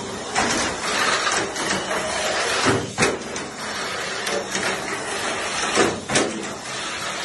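Mini 4WD toy racing car running around a plastic track with a steady rattling clatter, and sharp knocks about three seconds in and again near six seconds. Its battery is nearly flat, so it runs slow.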